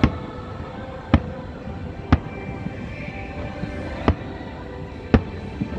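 Aerial firework shells bursting: five sharp bangs about a second apart, with music playing underneath.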